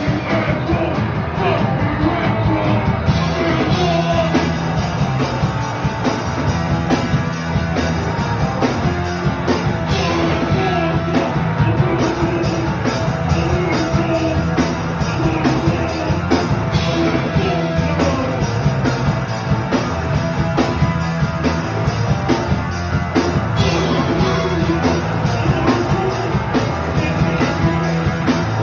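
Live rock band playing loud, with fast busy drums under sung vocals.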